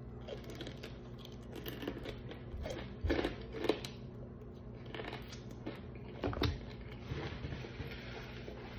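Biting and chewing crispy fried chicken close to the microphone: crackly crunches of the breaded skin, loudest about three seconds in and again after six seconds. A steady low hum runs underneath.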